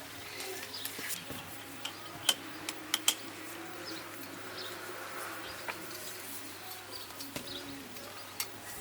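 Birds calling outdoors, with a dove's low wavering coo and small chirps, and a few sharp clicks, the loudest about two and three seconds in.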